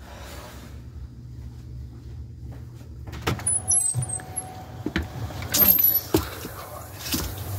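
Front door being opened: latch and handle clicks and knocks begin about three seconds in, with a few thin high squeaks as the door swings, then footsteps and bumps as someone steps out onto the porch. Before that there is only a low steady hum.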